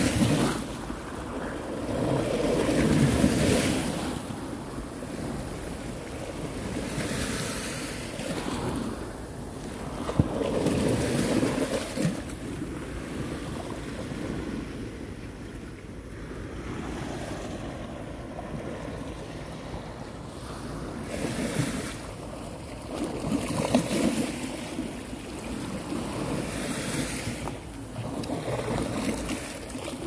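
Small sea waves breaking and washing up against concrete beach steps and onto the sand, each surge swelling and fading every few seconds.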